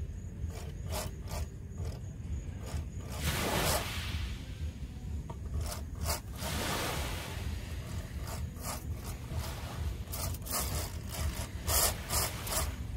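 Rasping scrapes and short clicks from a heavy rod and reel being worked against a large hammerhead shark, with two longer rushing surges about three and six seconds in and a steady low rumble underneath.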